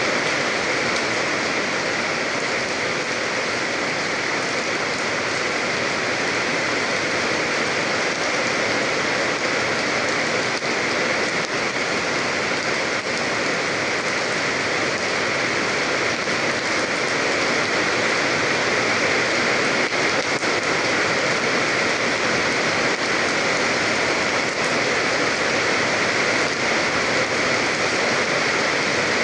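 Steady rain falling on a surface, a dense even patter of many small drops.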